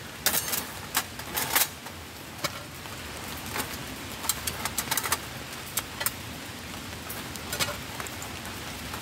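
Metal clinks and clicks as the steel panels of a flat-pack wood-burning camp stove are slotted together and set down on a wire mesh grill, in irregular single knocks and quick runs. Light rain patters steadily underneath.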